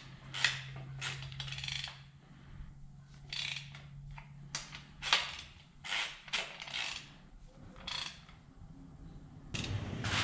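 Torque wrench ratchet head clicking in short runs as it is swung back and forth, tightening the main bearing cap bolts on a 289 Ford V8 block on a first pass to 20 ft-lb. A low steady hum sits under the first few seconds, and the background gets louder near the end.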